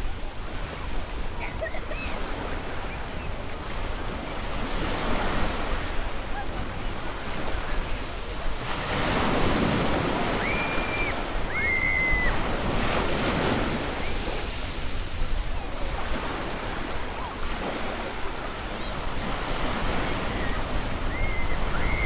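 Ocean surf washing onto a beach, swelling louder as waves break around the middle. Children's voices call out faintly now and then over the surf.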